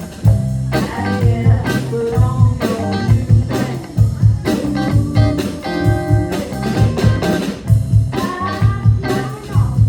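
Live blues trio playing an instrumental passage: guitar lines over bass and a drum kit keeping a steady beat.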